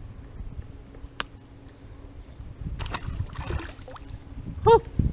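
Handling noise on a fishing boat after a bass is landed: a few sharp clicks and knocks, a brief splashy water sound about three seconds in, then a short squeak-like pitched sound and a low thump near the end.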